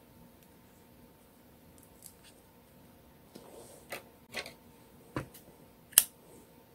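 Handling noise of crocheting with a small crochet hook and yarn: a few soft clicks and ticks from about halfway in, then one sharp click near the end.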